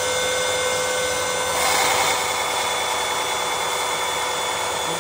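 Bosch belt sander running with a steady motor whine. About one and a half seconds in, the steel of a chisel is pressed onto the moving sanding belt, adding a grinding hiss as the chisel's bevel is ground.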